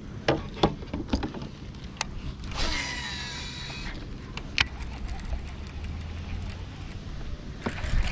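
Baitcasting fishing reel: a few sharp clicks, then the spool whirring on a cast for about a second and a half, falling in pitch as it slows, followed by the steady low sound of the reel being cranked to wind line in.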